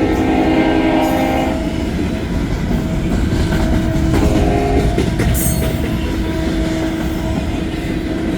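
Union Pacific EMD SD70ACe diesel locomotive sounding a chord on its horn that cuts off about a second and a half in, then the locomotive and train running on with a steady low rumble and a faint steady tone. A brief hiss comes about five seconds in.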